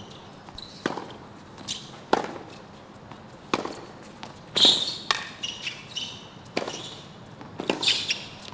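Tennis rally on a hard court: sharp racket strikes and ball bounces about once a second, with short shoe squeaks on the court surface near the middle and near the end.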